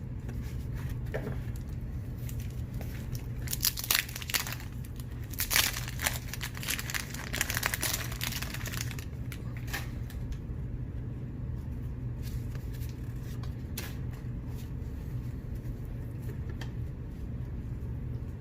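Crinkling and tearing of a 1991 Topps baseball card pack's wrapper, in a cluster of crackles from about three seconds in to about ten seconds in, then a few light ticks of cards being handled over a steady low hum.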